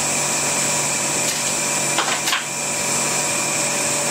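Vacuum pump running steadily, holding vacuum on a resin infusion bag, a constant hum with a hiss. A few short crackles come about two seconds in.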